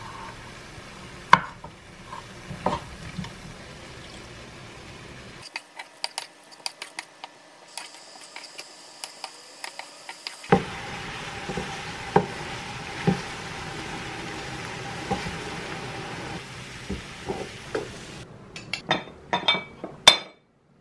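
Vegetables and shrimp sizzling in a non-stick frying pan, stirred with a wooden spoon that knocks against the pan again and again. Near the end, a few sharp ceramic clinks as a bowl is handled on a plate.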